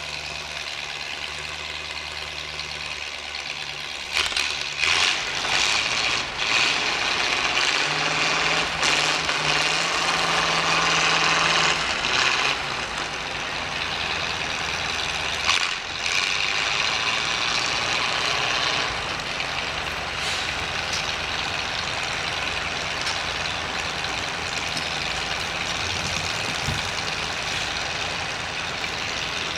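Steam donkey engine hauling a log up on its rigging, with steam hissing loudly from about four seconds in for some fifteen seconds, over a low steady drone.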